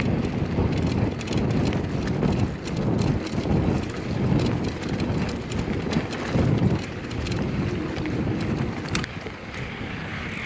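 Wind rushing and buffeting over the microphone while riding a mountain bike on a trail, with scattered light clicks from the bike.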